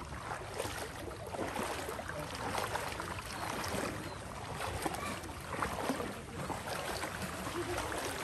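Moving through floodwater: water swishing and splashing over a steady low rumble, with scattered small splashes and knocks.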